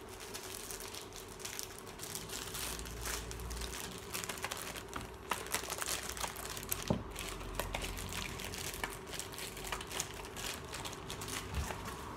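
Clear plastic bag crinkling and rustling as it is handled and filled, with irregular sharper clicks of small plastic bottles knocking together inside it.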